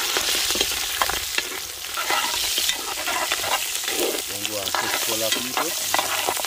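Food frying in hot oil over an open fire: a steady sizzle with many small crackles and pops.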